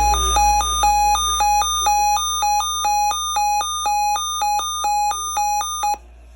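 Electronic emergency alert tone for a severe thunderstorm watch, alternating rapidly between a lower and a higher pitch, about two high-low cycles a second, then cutting off suddenly near the end.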